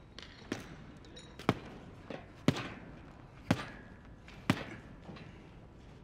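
Boxing-glove punches landing with sharp thuds about once a second, five loud hits with a few lighter ones between, echoing in a large gym hall.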